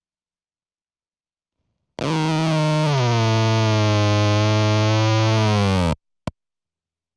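Electric guitar through a Fuzz Factory fuzz pedal holding one sustained, synth-like fuzzed note. The note drops in pitch about a second after it starts, and its tone sweeps downward as it sustains. It cuts off abruptly, with a short click just after, following two seconds of silence at the start.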